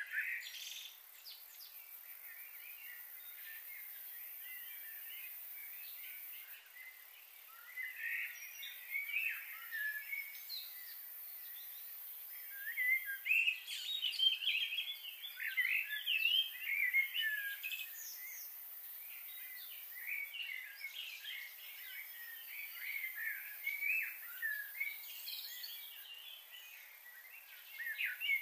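Small birds chirping and calling in quick, overlapping phrases, sparse at first and busiest around the middle, over a faint steady outdoor hiss.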